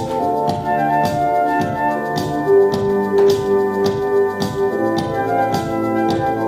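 Music: sustained chords that shift from note to note over a steady beat of about two strokes a second.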